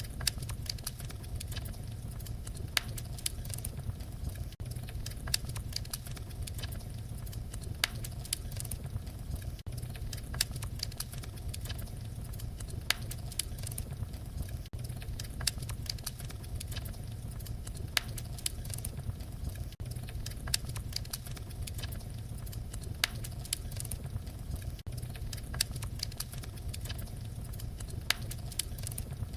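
Wood fire crackling: irregular sharp pops and snaps over a steady low rumble of the flames.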